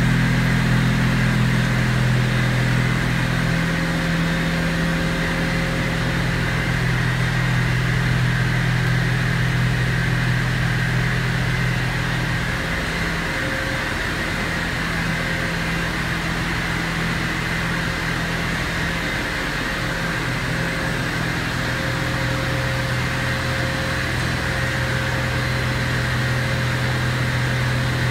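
Steady drone of a Volute sludge screw press and the machinery around it running as it dewaters sludge. A low hum sits under a fainter, higher steady whine, with no breaks.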